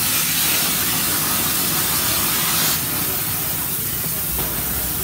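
Loud, steady hiss of a high-pressure spray jet from a detailing wand cleaning a car wheel. It eases slightly about three seconds in, and a low hum joins near the end.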